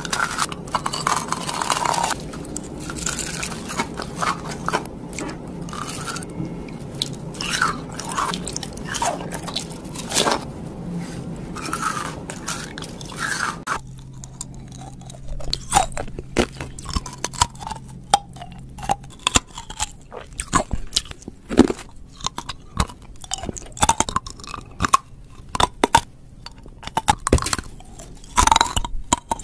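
Close-up biting and chewing of crystal candy. First there are dense, loud crunches as gem-shaped crystal candy is bitten and chewed, then, after an abrupt change about halfway, separate sharp crunches as sugar rock candy on a stick is bitten and chewed.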